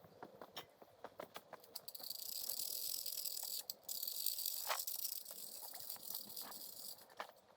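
Insects buzzing in the woods: a high, steady hiss that starts about two seconds in, breaks off briefly, then resumes and fades near the end. Scattered light clicks and knocks come before and under it.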